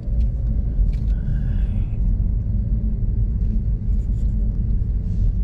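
Steady low rumble of an RV on the road, engine and road noise heard from inside the cab.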